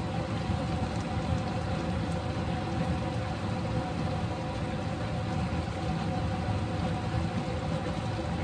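Pan of chicken livers, gizzards and hearts sizzling steadily as balsamic vinegar is drizzled in, with a steady hum underneath.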